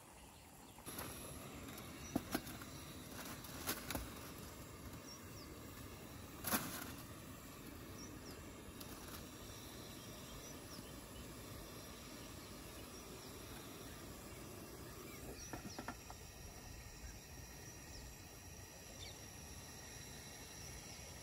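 Outdoor ambience: a steady low hiss with faint bird chirps and insect sounds, broken by a few sharp clicks and knocks, the loudest about six and a half seconds in.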